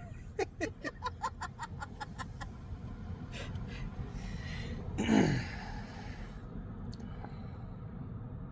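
A person with hiccups giggling under their breath in short, quick bursts for the first couple of seconds. About five seconds in comes one loud hiccup that drops sharply in pitch, followed by a breath out.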